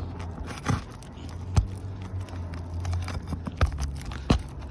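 Roofing nails being pried out of shingles: sharp knocks and clicks of metal tool on nail and shingle, about four strong ones, with crackling and crunching of the shingle between them.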